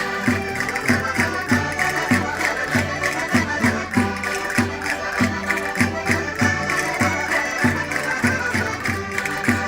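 Portuguese concertinas (diatonic button accordions) playing a lively Minho folk tune, a running melody over an even bass beat of about three notes a second.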